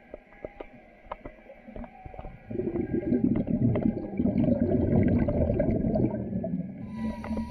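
Scuba diver's exhaled bubbles from the regulator, recorded underwater: a low gurgling rumble starts about two and a half seconds in and fades near the end. Faint scattered clicks run beneath it.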